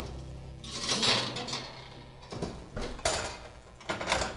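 Cookware being handled at the oven and stovetop: a sharp click, then several short scraping, rattling noises of pans being moved.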